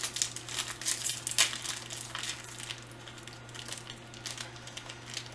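Plastic snack wrapper crinkling and crackling as it is handled, busiest in the first two or three seconds, then scattered crackles.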